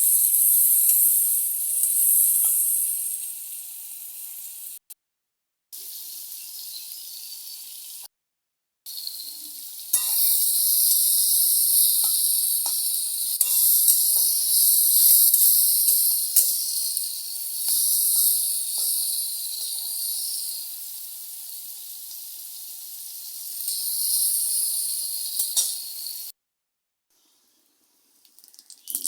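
Food sizzling in hot oil in a cooking pan: a steady frying hiss with faint utensil ticks, broken by a few abrupt silent gaps.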